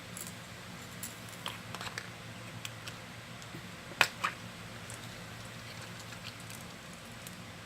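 Small clicks and taps of a fishing lure and its packaging being handled, with a sharper double click about four seconds in.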